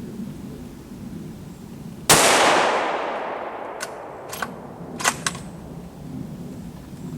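A single rifle shot from a 5.56 NATO Ruger American Ranch bolt-action rifle, loud and sharp, with an echo fading over about a second and a half. A few seconds later come four short, sharp clicks.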